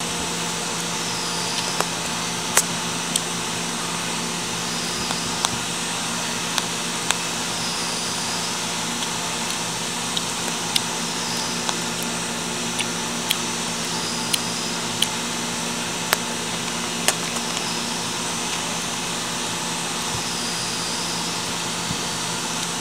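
Steady machine hum with a low drone and a faint high sweep that comes back every few seconds, broken by sharp clicks at irregular intervals, about one a second.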